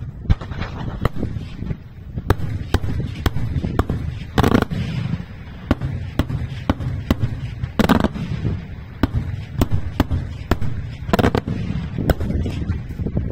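Daylight aerial fireworks bursting overhead in a rapid, irregular string of sharp bangs over a steady low rumble. Three louder, longer blasts stand out about four, eight and eleven seconds in.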